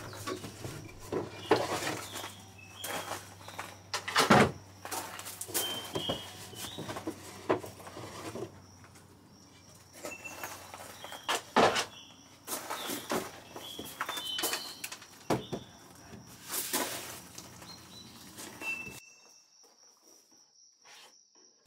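Wooden knocks and scraping as a painted wooden side table is turned over and worked on by hand, with small birds chirping in between.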